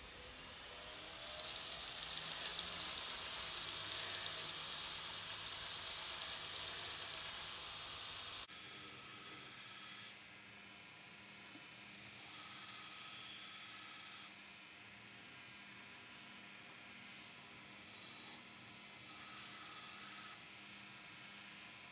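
AmeriBlade belt grinder running with a steel chisel pressed against its abrasive belt, throwing sparks: a steady grinding hiss. It grows louder about a second and a half in and swells briefly a couple of times as the pressure on the belt changes.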